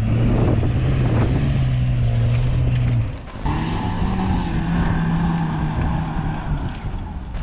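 Toyota FJ Cruiser's engine pulling under load as it climbs a sandy slope, its pitch stepping up about a second in and holding. After a short break about three seconds in, a Toyota Land Cruiser Prado's engine pulls steadily at a higher pitch up a steep sandy hill, easing off slightly near the end.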